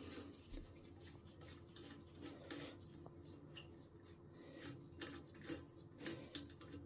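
Faint small metallic clicks and scrapes of a valve core screwdriver unscrewing a Schrader valve core from a boiler expansion vessel's air valve. The clicks are irregular and come more often in the second half.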